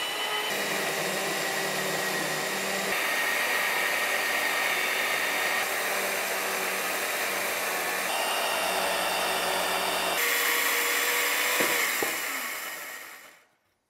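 Worm-drive SKIL Mag77 saw fitted with a Prazi Beam Cutter chainsaw bar, ripping lengthwise along a timber beam: a steady motor whine over the chain chewing through the wood. Near the end the motor winds down and stops.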